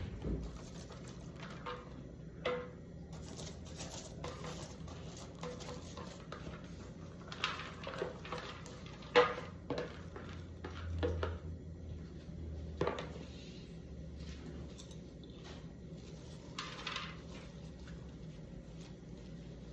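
Scattered clinks and knocks of dishes and utensils being handled, the loudest about nine seconds in, over a steady low hum.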